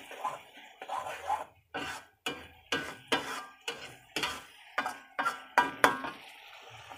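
A metal ladle stirring a thick tomato sambal in a metal wok: soft scraping at first, then repeated ringing clinks against the pan, about two a second.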